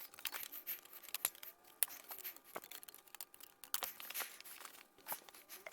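Hand metal snips cutting sheet metal: a run of irregular snips and clicks as the excess is trimmed from a base plate.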